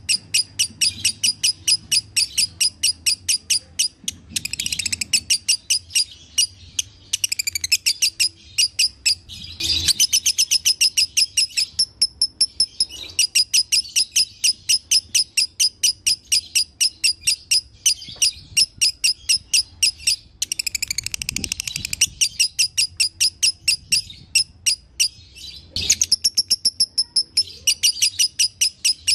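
Lovebird singing: long runs of rapid, high repeated chirps, about six a second, broken now and then by brief pauses. This is the fast chattering song that Indonesian keepers call dobelan or konslet.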